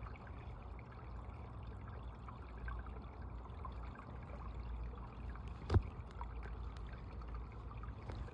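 Creek water running and trickling steadily, with one sharp knock a little past halfway through.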